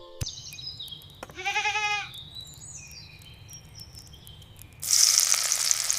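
A goat bleats once, a short wavering call about a second and a half in, with small birds chirping. Near the end, meat goes into hot oil and starts frying with a loud, steady sizzle.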